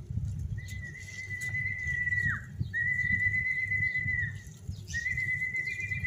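A person whistling three long, steady notes, each about one and a half seconds, the first ending in a quick downward slide; the whistles call free-flying pet lovebirds back. Wind rumbles on the microphone underneath.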